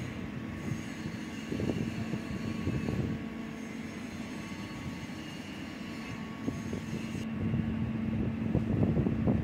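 Hydraulic boat lift machinery running during a caisson's descent: a steady mechanical hum with several constant tones, swelling a little louder now and then.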